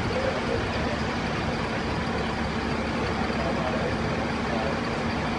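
Fire engine's diesel engine idling steadily: a constant low rumble with an even hum under it.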